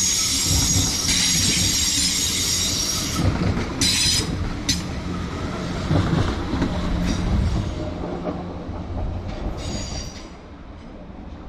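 A train running past on the rails with a loud, high-pitched metallic wheel squeal that holds for about the first three seconds and then comes back in short bursts. Under it a steady rumble of wheels, which fades near the end.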